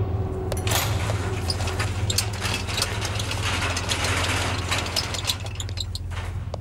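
Metal serving trolley being wheeled along, its castors and shelves rattling and clicking irregularly, thinning out as it comes to a stop near the end, over a steady low hum.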